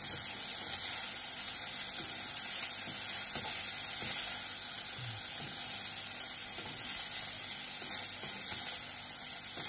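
Fried rice with chopped omelette sizzling in a nonstick frying pan as a wooden spatula stirs and turns it: a steady frying hiss with a few light knocks and scrapes of the spatula against the pan.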